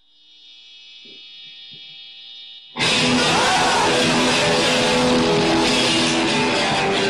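Electric guitar amplifier switched on, giving a steady high whine and hum, with two soft knocks. About three seconds in, a loud electric guitar blast through the amp cuts in suddenly and keeps going.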